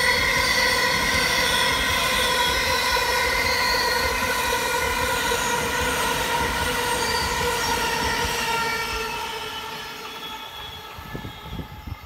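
Thameslink Class 700 electric multiple unit running past at speed: wheel rumble under a steady high whine of several tones. The sound fades away from about nine seconds in as the train clears.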